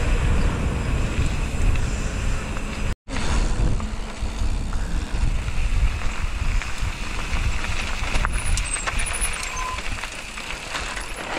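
Wind buffeting the action camera's microphone and mountain bike tyres rolling at speed, first on asphalt and then on a gravel lane, with a short dropout to silence about three seconds in. Near the end the rumble eases and a few light clicks come through.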